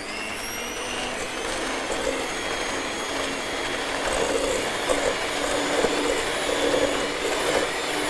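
Electric hand mixer running at a steady speed, its beaters whirring through margarine and sugar in a stainless steel bowl to cream them light and creamy.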